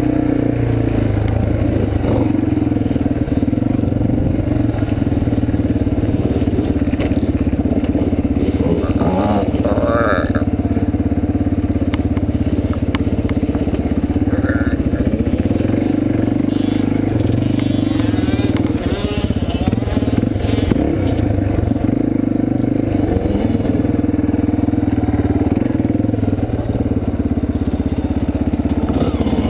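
Yamaha dirt bike's engine running close to the microphone while riding a trail, its note shifting a little with the throttle. Scattered rattles and knocks come from the bike over rough ground.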